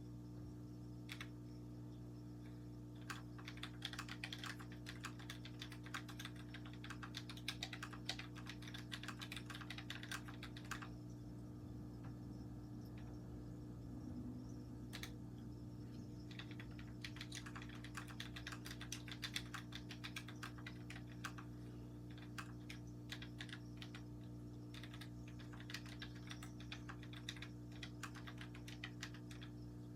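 Typing on a Keychron K3 low-profile mechanical keyboard: runs of quick key clicks, with a pause of a few seconds in the middle, over a steady low hum.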